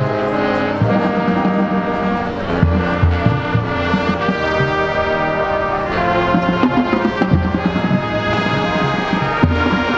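High school marching band playing, held brass chords over swelling low brass notes, with drum hits.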